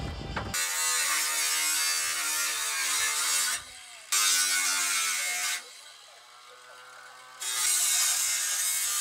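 Handheld electric power tool cutting a hole in a steel sheet: a motor whine with a harsh, hissing metal-cutting noise, in three runs with short pauses, its pitch sagging under load in the middle run.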